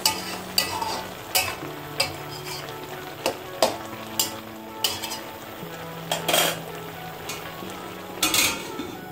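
A metal spatula scrapes and taps against a black enamelled pan as it stirs simmering spinach, about once or twice a second, over the sizzle of the cooking liquid. Near the end a steel lid is set down on the pan with a longer clatter.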